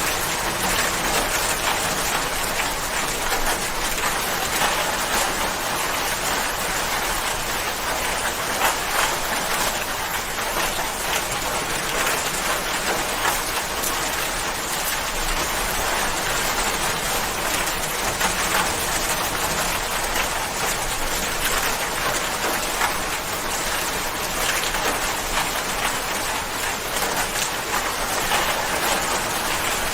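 Steady rain falling, an even hiss of many fine drops with small patters scattered through it.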